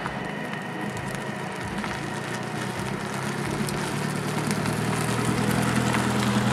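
Mercedes C 300d's 2.0-litre four-cylinder diesel engine running at low speed as the car drives toward and past, with tyre noise on asphalt. Both grow steadily louder as it comes close.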